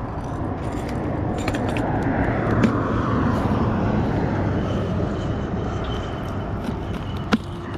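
A car passing by, its rushing road noise swelling over the first few seconds and then fading away. Small clicks and taps come from a knife and a fish being handled on a plastic bucket lid, one sharper click near the end.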